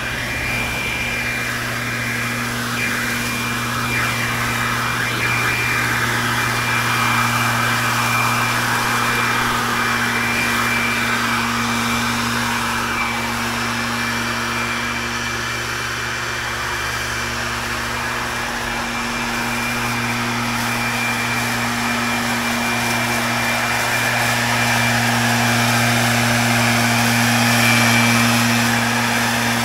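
Gas backpack leaf blower running steadily at high throttle, blowing leaves. It grows somewhat louder toward the end.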